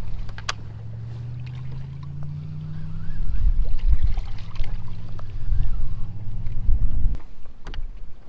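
A motor on a bass boat running with a low steady hum that drifts slightly in pitch, then stops abruptly about seven seconds in. A few short sharp clicks sound over it.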